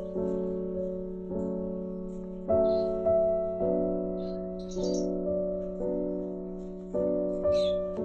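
Background music: gentle piano or electric-piano notes and chords, a new one struck about every second and left to ring out.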